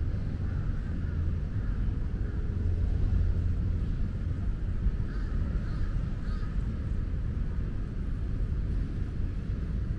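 Steady low rumble of outdoor ambience with birds calling, a few clearer calls about five to six and a half seconds in.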